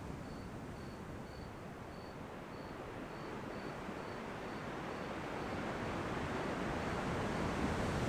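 Ocean surf: a steady rushing wash that swells louder over the second half as a wave comes in. A faint high chirp repeats about twice a second, fading out near the end.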